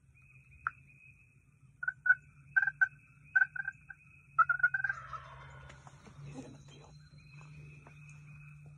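Wild turkey gobbler calling: a string of short, sharp notes from about two seconds in, then a rolling gobble that tumbles down in pitch about five seconds in.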